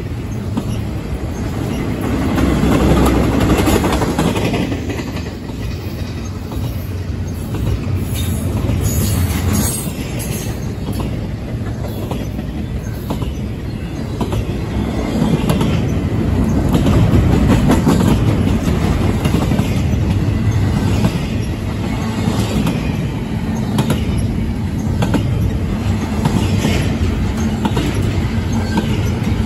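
Loaded double-stack container well cars of a CSX freight train rolling past: a steady rumble of steel wheels on rail with repeated clicking over the rail joints, swelling and easing in loudness.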